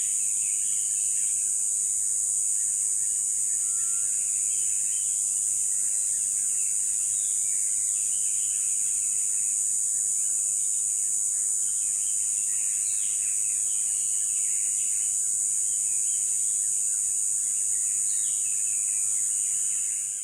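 Steady, high-pitched drone of a chorus of insects, with scattered short bird chirps through it.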